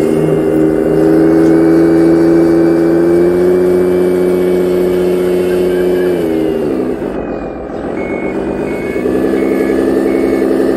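RC Hino Victor 380 dump truck's sound unit playing a diesel truck engine, running steadily, then dropping to a lower pitch about six seconds in as the truck stops. From about eight seconds a reversing beeper sounds in evenly spaced beeps while the truck backs up.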